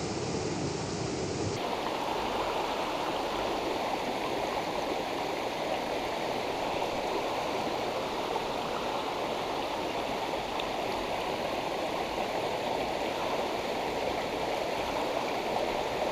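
Brook water running steadily, with an abrupt change in its sound about a second and a half in.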